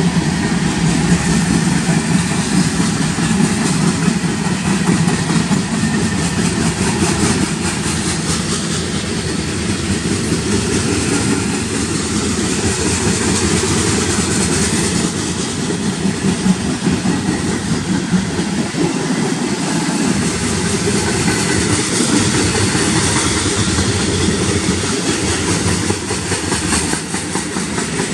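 Cars of a mixed freight train (steel-coil cars, gondolas, tank cars) rolling past close by: a steady, loud noise of steel wheels running on the rails.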